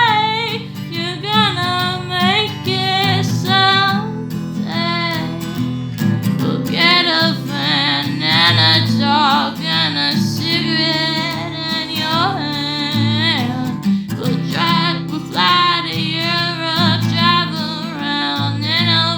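A woman singing in a high voice with vibrato, over acoustic guitar accompaniment.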